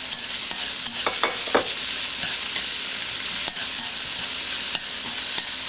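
Pork belly pieces sizzling steadily as they are stir-fried in a nonstick wok, with a few light clicks of the stirring utensil against the pan. The pork is being lightly fried to render out some of its fat.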